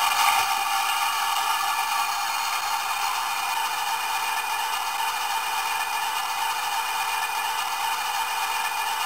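ESU LokSound sound decoder's diesel engine sound playing through the small 23 mm speaker in a Hornby OO-gauge Class 60 model, running steadily at idle. It sounds thin and hissy, with no low end.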